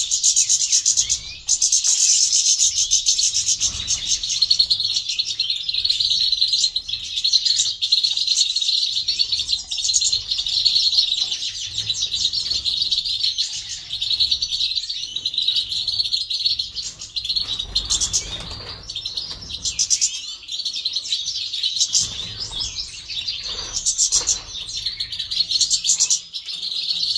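Several caged grey-headed goldfinches singing together: a dense, continuous twittering song with rapid trills and chirps.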